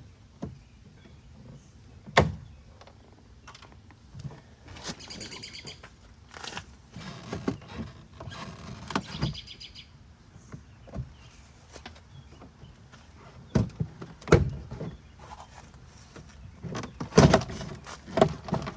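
Plastic door trim being pried and worked off its push-pin clips: scattered clicks, scraping and rattling, with sharp knocks about two seconds in, around the middle of the second half, and the loudest near the end.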